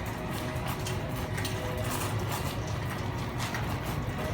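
Metal shopping cart rolling and rattling as it is pushed, a steady low rumble with light clicks.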